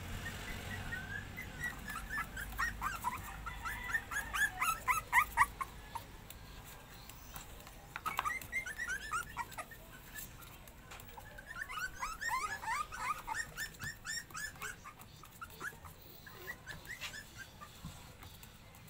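Young puppies whimpering: runs of short, high-pitched cries, several a second, in a few bouts with brief pauses between.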